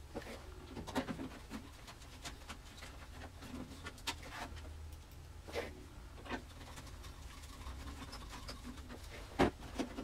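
Faint clicks and scrapes as a desktop computer case's side panel is fitted and its screws are turned in with a screwdriver, with a sharper knock near the end.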